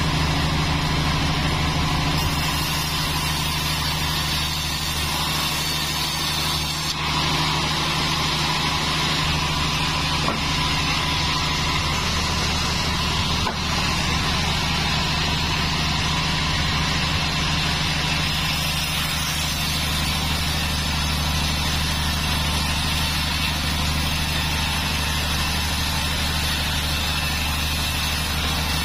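Large Bandsaw 36 sawmill band saw running steadily with a low hum, sawing teak timber at times.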